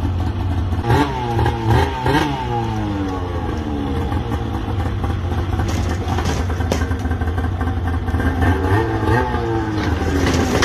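Snowmobile engine running and revved in several rising and falling blips as the sled is driven off a trailer deck down a steep ramp. A few short knocks and clanks come about midway and again near the end as the sled comes down the ramp.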